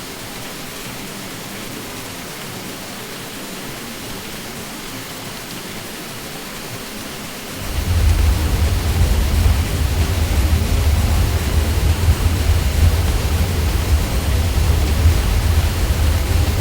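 Steady, even ceiling-fan drone with no distinct tones, of the kind used as sleep noise. About halfway in, a deep low rumble cuts in abruptly and the sound becomes clearly louder.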